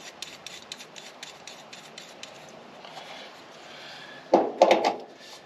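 Small metal clicks and rubbing from a hand rivet-nut (nutsert) tool being worked on a nutsert, with a short burst of louder metallic knocks about four and a half seconds in.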